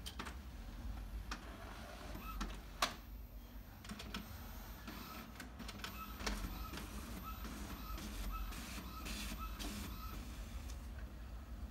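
Inkjet printer printing a page: a few clicks, the sharpest a little under three seconds in, then from about five seconds in the print head shuttling back and forth in an even rhythm of about two passes a second, stopping near the end.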